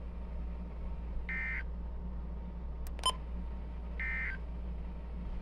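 Two short Emergency Alert System (SAME) digital data bursts, the end-of-message tones closing a weather-radio warning, each a harsh warbling beep under half a second long and about three seconds apart. A steady low radio hum runs underneath, with a brief click between the bursts.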